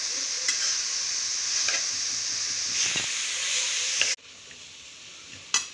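Shredded cabbage, carrot and capsicum sizzling in hot oil in a non-stick kadai on medium heat while being stirred and tossed with a steel spoon, with a few clinks of the spoon against the pan. The sizzling cuts off suddenly about four seconds in, leaving a low background and one sharp click near the end.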